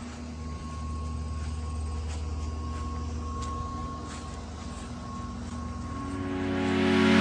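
A steady low mechanical drone, like a distant engine, over outdoor background sound. About six seconds in, music starts to swell up and grows louder.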